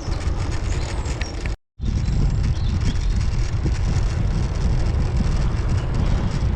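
Wind rushing and buffeting over the microphone of a moving bicycle, a steady low rumble. The sound cuts out completely for a moment about a second and a half in, then carries on.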